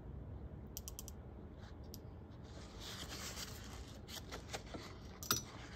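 Small tabletop handling sounds from a glass ink dropper and bottles. A few quick light clicks come about a second in, then scratchy rubbing around the middle, then one sharp tap near the end, the loudest sound.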